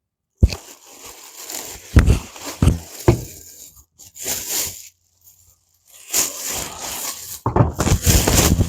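Unboxing noise: cardboard and packing material being scraped, torn and rustled, with several sharp knocks in the first few seconds and longer rustling and scraping near the end.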